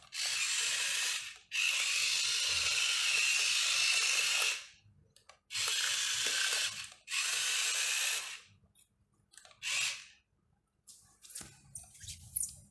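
Small electric gear motors of a toy RC excavator whirring in bursts of one to three seconds as the arm and bucket are driven, about five times, with a few short clicks near the end.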